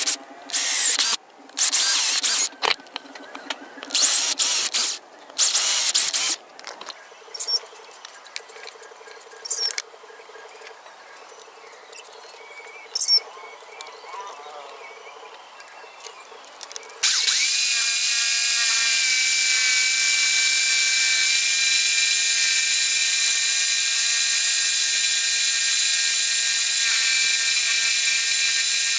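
A power drill running in short bursts, boring pilot holes through the paper pattern into the wood board; then some handling clicks. About two-thirds of the way through, a steady, high-pitched whine starts and holds evenly: the motor of a homemade scroll saw running.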